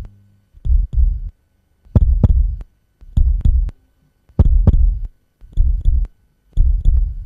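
Heartbeat sound effect: a deep double thump repeating about once a second, six times, with silence between beats.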